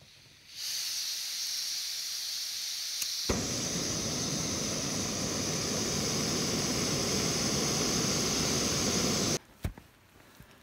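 Backpacking canister gas stove: gas hisses from the opened valve, and about three seconds in a sharp click lights it. The burner then runs with a steady, fuller rushing hiss under the pot until the sound cuts off abruptly near the end.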